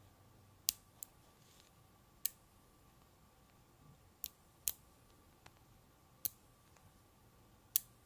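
5 mm magnet balls snapping together one at a time as a ring is built: sharp, short metallic clicks at irregular intervals, about seven in all.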